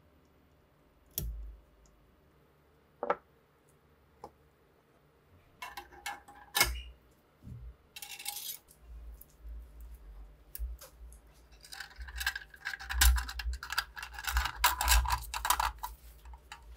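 Rusty SVT-40 rifle magazine being taken apart by hand: a few separate metal clicks, then scraping and clinking of steel parts as the follower and coil spring come out of the magazine box. The handling grows busier toward the end.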